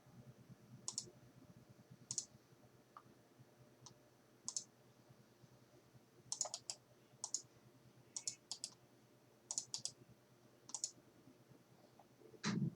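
Computer mouse buttons clicking: single clicks and a few quick double clicks, spaced roughly a second apart. A short, louder low thump comes near the end.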